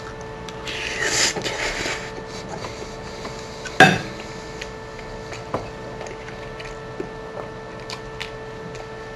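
A person eating off a plate with a metal fork: a short stretch of noisy mouth sounds as a forkful of stringy melted cheese goes in, then a sharp clink of the fork on the plate about four seconds in, followed by a few lighter clicks. A faint steady hum runs underneath.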